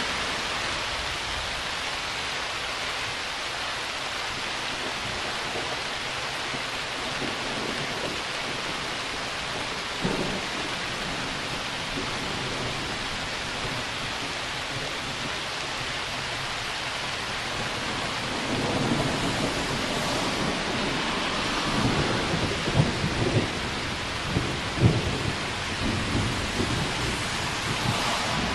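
Rain falling steadily throughout. About two-thirds of the way in, a long roll of thunder builds and rumbles for several seconds, with a few sharper cracks near its peak, then eases back into the rain.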